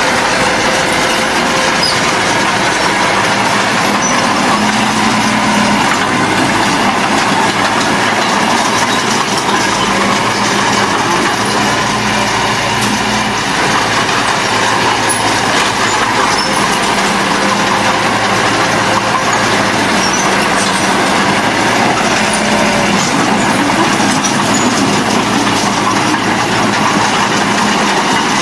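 Diesel engine of heavy earthmoving machinery running steadily with a continuous droning clatter.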